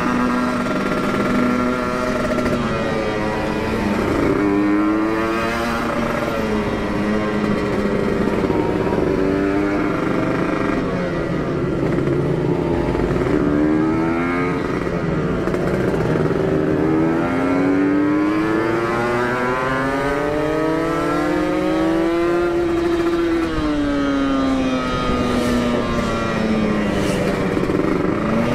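Kawasaki Ninja motorcycle with an aftermarket Aitech exhaust, ridden on the road. Its engine note rises and falls over and over as the rider accelerates and eases off through the gears.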